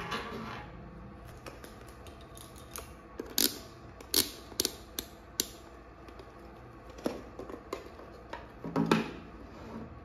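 Handling noise of a digital multimeter being picked up and set down on a wooden tabletop: a string of sharp clicks and taps, bunched a few seconds in and again near the end.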